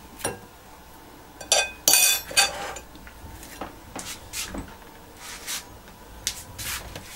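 Cutlery and ceramic plates clinking as fried fish is put onto a bowl of rice: a cluster of sharp, ringing clinks about one and a half to two and a half seconds in, then lighter scattered taps.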